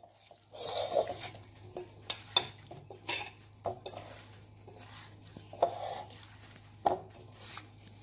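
Hand mixing oiled, spiced potato wedges in a glass baking dish: irregular wet rustling and squelching, with several sharp knocks of potatoes against the glass.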